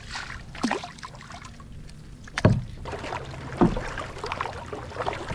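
Kayak paddle strokes splashing in lake water, with three strong strokes and lighter splashes between them over a steady wash of water.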